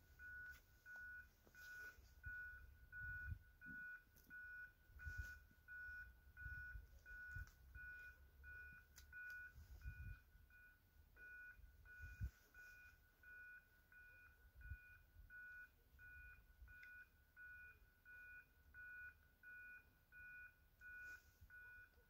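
Faint railway level-crossing warning signal beeping steadily: one high tone repeating about every two-thirds of a second, as the crossing warns of an approaching train. A low irregular rumble sits underneath.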